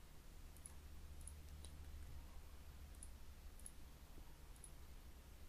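Near silence: a steady low hum of room tone with about six faint, short clicks spread through it, from a computer mouse and keyboard being worked.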